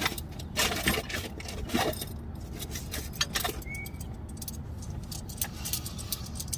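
Metal hand tools clicking, clinking and scraping against the steering linkage as a cotter pin is worked out of a tie rod end, in a run of short irregular clicks over a steady low background rumble.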